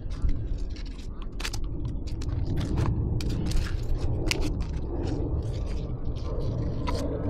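Irregular sharp clicks and scrapes of handling over a steady low rumble.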